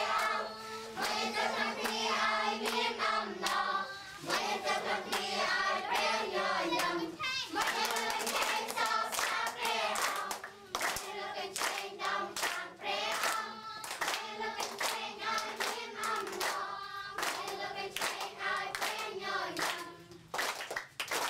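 A group singing a worship song together with hands clapping along in time.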